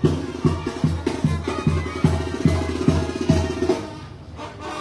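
Sinaloan banda music playing: a steady low bass line on a regular beat with percussion, thinning out about three-quarters of the way through.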